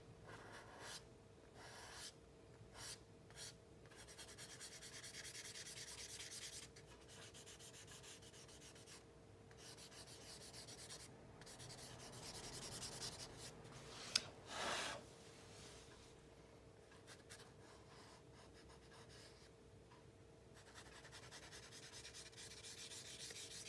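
Charcoal rubbed and scraped across drawing paper by hand, faint scratchy strokes that come and go, with one sharp click and a short louder rasp about halfway through.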